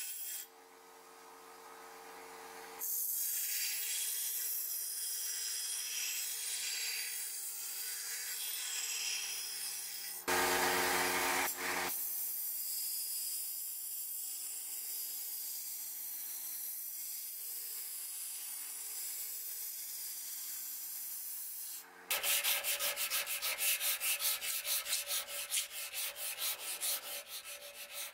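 Belt grinder running with a steady hiss and motor hum, with a louder rasp of steel pressed to the belt for a couple of seconds around ten seconds in. From about 22 seconds on, the steel axe head is rubbed by hand with an abrasive in quick back-and-forth strokes.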